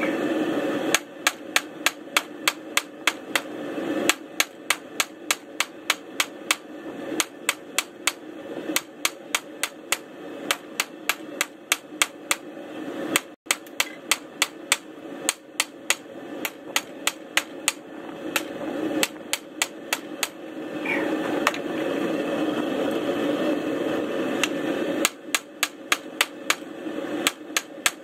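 Blacksmith's hand hammer striking red-hot steel on an anvil, forging a tong blank: runs of sharp blows, about three a second, broken by short pauses. A steady rushing noise runs underneath.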